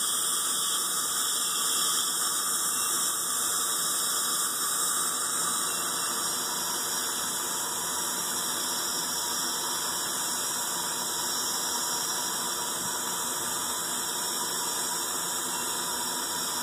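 Dental suction tip drawing air in the patient's mouth with a steady hiss and faint whine, unchanging throughout.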